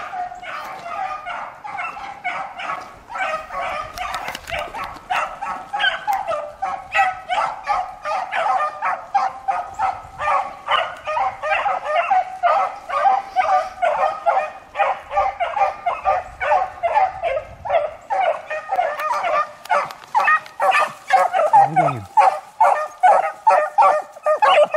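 Beagles baying on a rabbit's track: rapid, repeated bawling barks, about three or four a second, getting louder near the end as the hounds come close.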